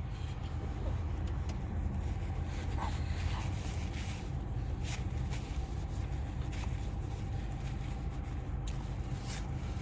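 Car engine idling, a steady low rumble heard from inside the car, with a few faint clicks over it.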